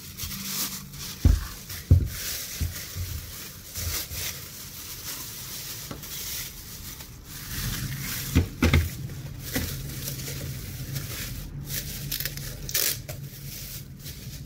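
Thin plastic bags crinkling and rustling as they are pulled off a plastic exhaust fan housing by hand, with a few dull knocks of the housing being handled, the loudest about one and two seconds in.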